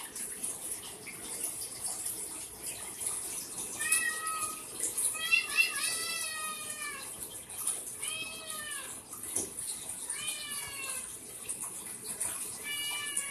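Cat meowing five times, high-pitched calls that arch up and fall away in pitch, over a steady hiss.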